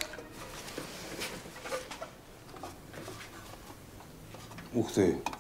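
Faint handling noises: small scrapes and taps of a metal tin box held in gloved hands, with a short louder sound about five seconds in.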